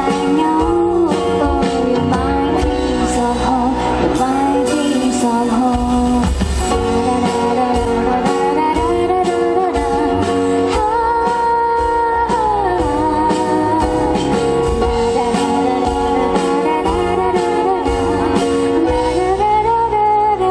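Live band performance: a woman singing into a microphone over drums and guitar, with a steady beat.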